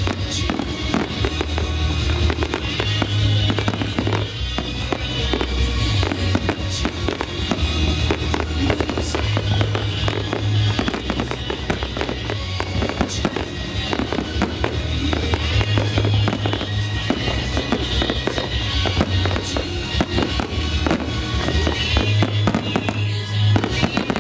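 Aerial firework shells bursting in a dense, continuous run of bangs and crackling, over accompanying music with recurring low bass notes.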